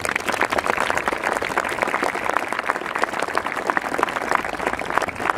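Audience applauding: dense clapping from many hands that starts suddenly and keeps on at an even level.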